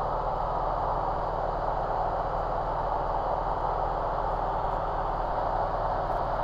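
Light aircraft's engine and propeller droning steadily in cruise flight, heard inside the cockpit.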